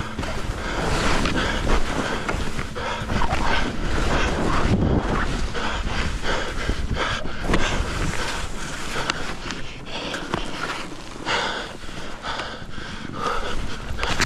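Skis hissing and scraping over chopped-up, bumpy snow on a fast descent, with wind buffeting the microphone and the skier breathing hard.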